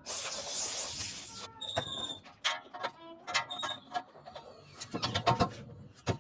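A hiss lasting about a second and a half, then a run of sharp metallic clicks and knocks from hand tools working on metal parts, a few of them ringing briefly, coming closer together near the end.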